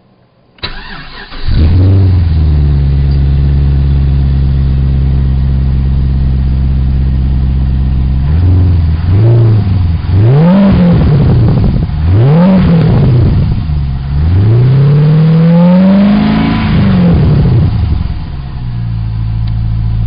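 Holden Commodore SV8's 5.7-litre LS1 V8, with a 3-inch straight-through cat-back exhaust and hot-dog muffler, cranking and catching about a second in, then running at a steady fast idle. From about eight seconds in it is revved several times: short blips, then one longer rev, before it drops back to idle. The tone is not too loud, just a nice tone.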